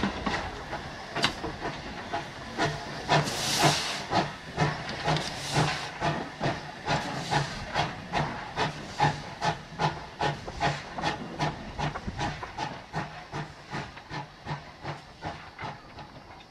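GWR 0-6-0 saddle tank steam locomotive working away under steam: a steady rhythm of exhaust beats, about two to three a second, with a burst of steam hissing about three seconds in. The beats grow fainter as the engine draws away.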